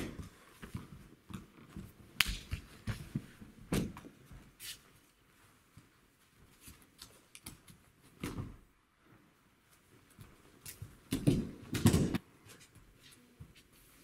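Aikido throws on training mats: bodies thudding onto the mats in breakfalls, with bare feet stamping and shuffling and gi and hakama cloth swishing between them. Sharp thuds come right at the start, about 2 and 4 s in, about 8 s in, and twice close together near 11 to 12 s.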